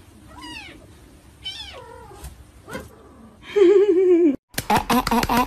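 Cats meowing: two short meows whose pitch falls, then a louder, longer meow with a wavering pitch about three and a half seconds in.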